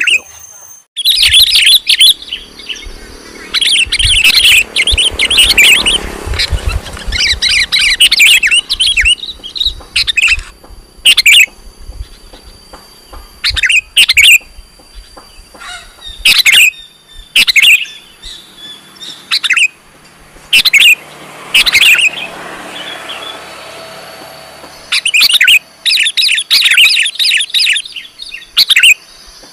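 Sooty-headed bulbul (kutilang) calling loudly. It gives fast chattering phrases near the start and again near the end, with single sharp calls about a second apart in between.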